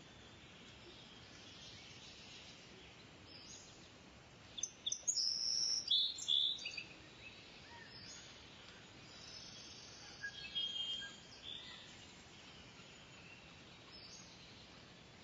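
Songbirds chirping and calling over a faint, steady outdoor hiss. There are bursts of high calls about four to seven seconds in and again around ten to eleven seconds.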